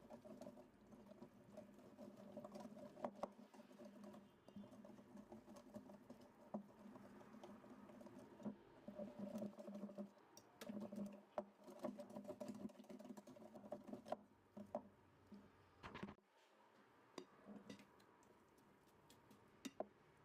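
Faint tapping and clinking of kitchen utensils against a bowl, over a low hum that stops about sixteen seconds in.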